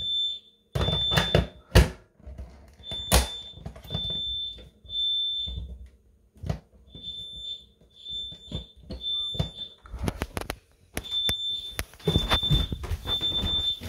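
Fire alarm sounding the temporal-three pattern: three high beeps, a pause, then three more, repeating. It is sounding for a test of a wireless smoke detector's alarm signal to the Honeywell panel, triggered by taking the detector off its base. Loud knocks and handling thumps fall between the beeps.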